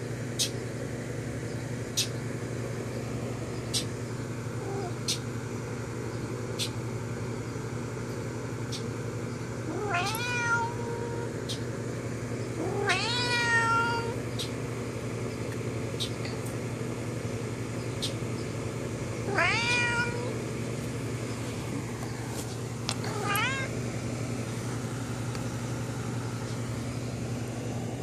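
A domestic cat meowing four times, several seconds apart, each call rising in pitch, over a steady low hum. Sharp clicks come every second or two in the first half.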